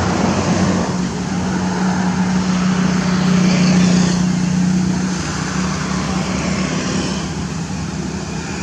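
Road traffic noise, with one vehicle's steady engine hum that grows louder until about four seconds in and then fades away.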